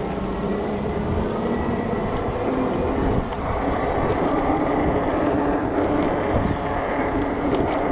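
A fat-tire electric bike on the move: its tyres rolling on pavement and wind rushing over the microphone, with a steady motor whine under it that creeps up slightly in pitch.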